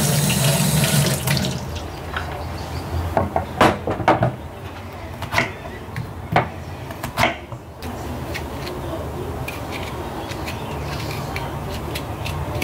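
Kitchen tap running onto a bitter melon being rinsed over a stainless steel sink, shut off about a second and a half in. Then several sharp knocks of a knife cutting the bitter melon into rounds on a wooden chopping board.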